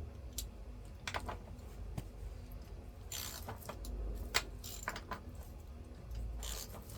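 Scattered metal clicks and short rattles of a hand wrench or socket being fitted to and turned on a chainsaw's bar-mount nuts, loosening them to adjust the chain tension.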